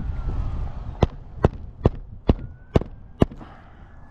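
Hammer blows on a shingle roof: six sharp strikes a little under half a second apart, from about a second in.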